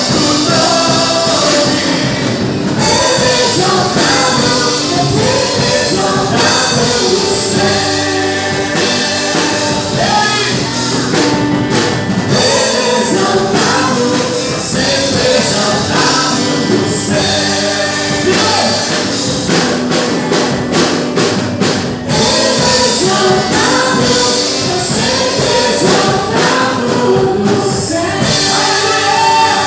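Gospel worship music: singers with a full band, loud and steady throughout.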